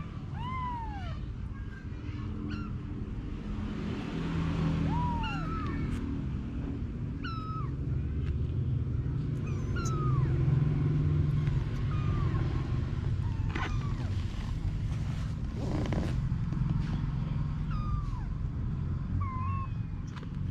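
Kittens mewing: about a dozen short, high-pitched mews, one every second or two, over a steady low rumble.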